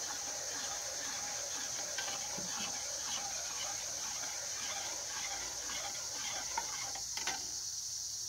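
A teaspoon stirring cocoa in a metal mess-kit pot, making soft scraping and light clinks against the pot's sides, with a couple of sharper taps near the end. A steady high-pitched drone runs underneath.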